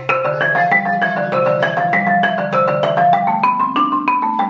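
Practice scales played on a tuned instrument with a bright, mallet-like tone: a steady run of notes, the low and high parts climbing step by step together.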